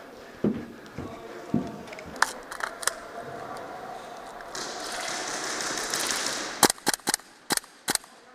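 Airsoft guns firing: about six sharp snapping shots, spaced irregularly near the end. Before them come two dull thumps and a rising rushing hiss.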